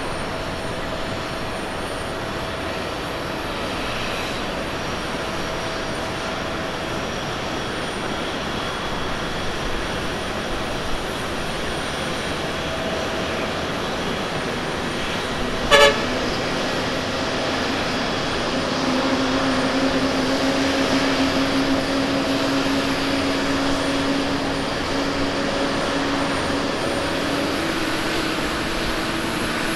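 Airbus A350's Rolls-Royce Trent XWB jet engines running at taxi idle: a steady whine and hum. A single brief, sharp toot sounds about halfway through, and the engine tone grows a little louder in the second half.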